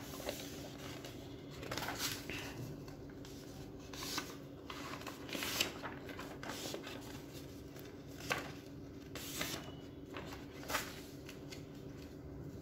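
Sheet of origami paper being folded by hand into accordion pleats: irregular rustles and crackles as the paper is turned and creased, a few louder than the rest. A faint steady low hum runs underneath.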